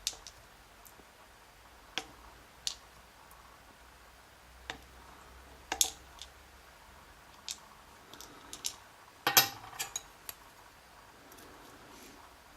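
Tweezers and small lock pins clicking and tapping against a pinning tray as the pins of a gutted dimple lock are laid out. It is a series of separate sharp clicks, with a quick cluster of the loudest ones about nine seconds in.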